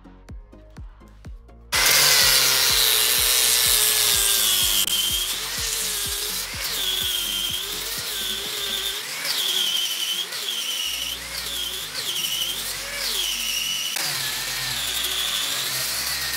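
Angle grinder with a sanding disc starting up about two seconds in and sanding the wooden blade of a cricket bat, its whine dipping in pitch again and again as the disc is pressed into the wood. A faint steady beat of background music is heard underneath at the start.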